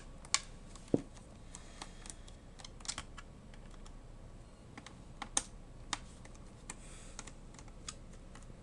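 Scattered small clicks and taps, irregular and a few per second, from a screwdriver and fingers working the screws and plastic case of a Fujitsu Siemens Lifebook T900 laptop during disassembly.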